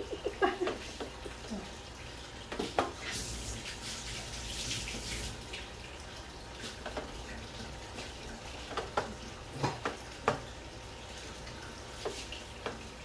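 Thick tomato spaghetti sauce heating in a wide aluminium wok over a gas burner, coming up to the boil: a steady hiss with scattered small pops and ticks from the sauce.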